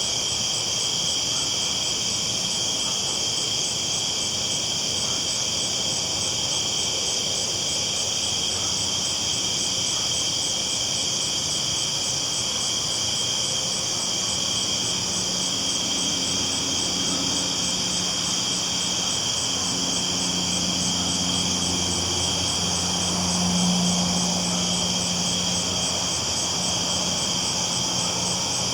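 Night chorus of crickets, a steady high chirring with a fast even pulse. A low engine drone builds from about halfway and swells around three quarters of the way through.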